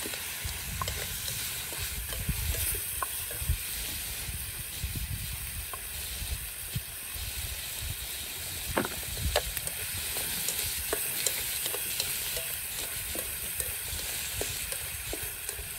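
Diced tomatoes and pineapple sizzling in oil in a steel wok over a wood fire, with scattered light clicks as they are stirred with chopsticks.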